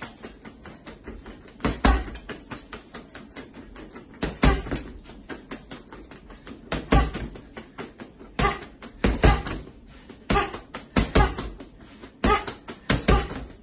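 Gloved punches hitting a free-standing reflex punching ball, landing as sharp thumps in quick combinations of a few hits, with a second or two between combinations.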